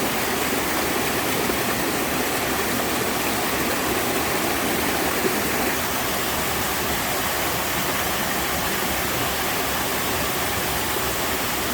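Mountain-stream waterfall, water cascading over rock in a steady, unbroken rush.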